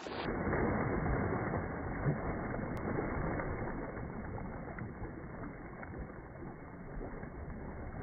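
White sturgeon thrashing and splashing in shallow water as it is released, slowed down so the churning water sounds low, muffled and drawn out. Loudest in the first couple of seconds, then easing.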